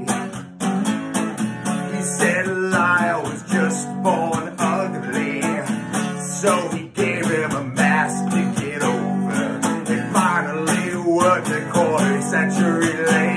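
A man singing to his own strummed acoustic guitar, the chords strummed in a steady rhythm under a wavering, sustained vocal line.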